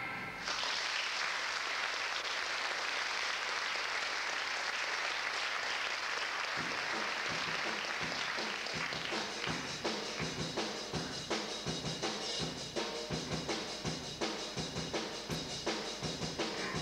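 Theatre audience applauding, a dense wash of clapping that starts suddenly and gradually thins. About six seconds in, a drum kit comes in under it with a steady bass-drum and snare beat that carries on to the end.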